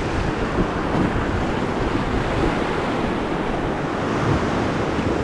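Whitewater river rapids at high flow rushing and splashing steadily around an inflatable raft, with wind buffeting the microphone.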